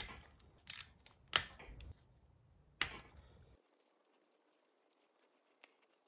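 A few sharp metallic clicks from a hand socket tool working the bolts of an engine's rear main seal retainer as they are undone, spread over the first three seconds. After that there is near silence.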